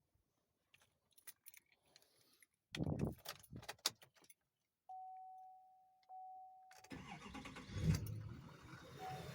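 Keys and a few knocks, then a steady electronic tone broken once. About seven seconds in, the LML Duramax 6.6-litre V8 turbodiesel cranks and fires up, then keeps running. It starts after running out of fuel, once compressed air was blown through the injector fuel return line.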